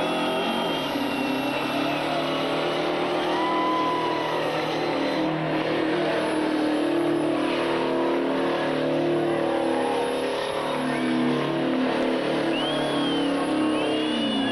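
Stripped-down truck doing a burnout: its engine is held at high revs while the rear tyres spin, a loud, steady noise with the engine pitch wavering up and down. Voices are heard over it.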